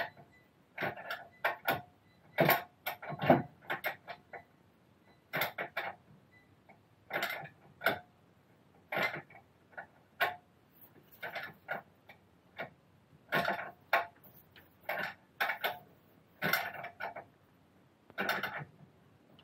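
Metal hand tools clicking and knocking irregularly, a ratchet wrench worked in short strokes on a suspension bolt: sharp ticks, single or in quick little groups, about once or twice a second.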